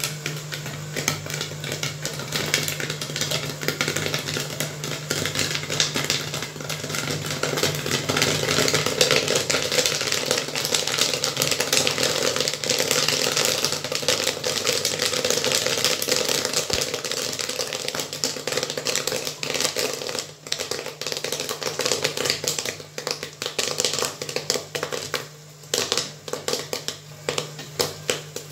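Corn popping in a motor-stirred popcorn machine kettle: a dense crackle of rapid pops that thins to scattered pops over the last several seconds, with a steady low hum underneath.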